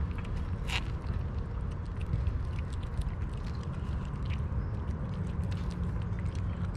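Kittens chewing and lapping wet cat food close up: many small, quick wet clicks over a steady low rumble.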